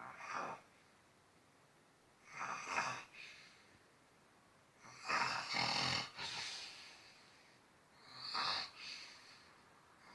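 A man snoring heavily: four snores, each about a second long, coming about every two and a half seconds, with quiet breaths between.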